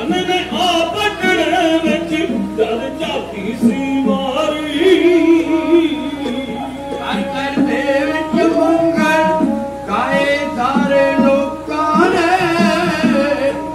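Dhadi music: men singing a Punjabi ballad with a wavering, ornamented voice, accompanied by beats on the dhad, a small hand-struck hourglass drum, and a bowed sarangi.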